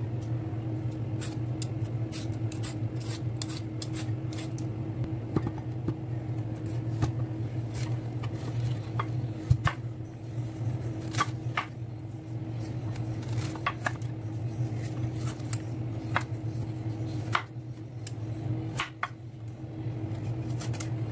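Kitchen knife cutting through a firm chayote on a wooden cutting board: irregular sharp cuts and knocks of the blade against the board, over a steady low hum. The chayote seems hard, perhaps an old one.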